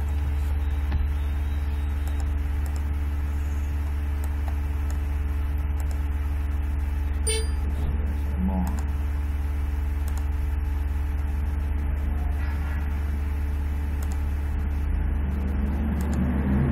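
Steady low hum, with a single faint click about seven seconds in.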